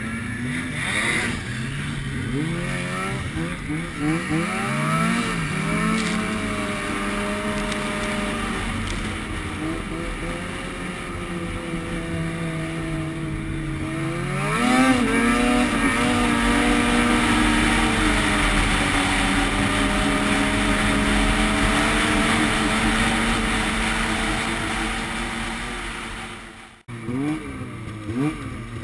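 Two-stroke snowmobile engine running under the rider, its revs rising and falling with the throttle, with wind noise over the helmet microphone. About halfway through it accelerates hard and holds high revs for about ten seconds, then the sound cuts off abruptly near the end before the revs waver up and down again.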